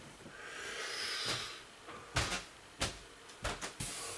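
Handling of boxes and belongings: a soft rustle, then a few light knocks and bumps.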